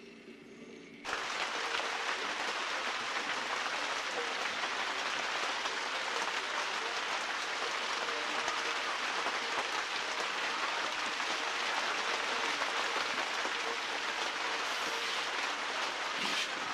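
Steady, even hiss with a faint hum under it, starting abruptly about a second in, after a moment of faint music.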